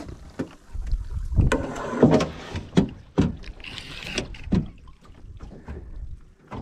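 Irregular knocks and thumps as a landing net with a redfish in it is swung aboard and set on the boat's wooden deck, bumping the gunwale. The loudest knocks come around two to three seconds in.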